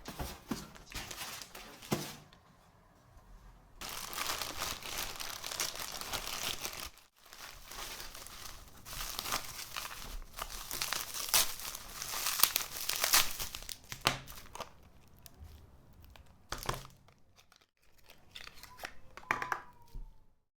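Parcel packaging being unwrapped by hand: plastic and paper crinkling and tearing in irregular spells, with short pauses between them.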